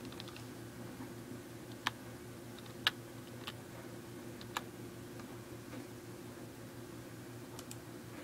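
Single keystrokes on a computer keyboard, a few slow, separate key clicks spread over several seconds, over a steady low hum.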